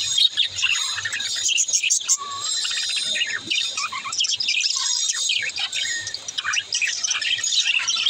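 A flock of budgerigars chattering, with many overlapping high chirps and warbling calls running on without a break.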